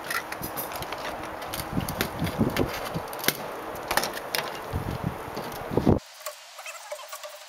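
Irregular clicks, knocks and scrapes of an LED light tube's plastic and metal parts being handled and pried at. About six seconds in the sound drops off suddenly, leaving a few fainter ticks.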